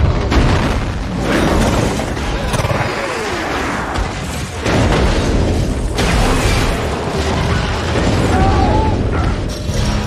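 Film sound effects of a bullet train derailing and crashing: loud continuous crashing and grinding of metal with deep booms, changing abruptly several times.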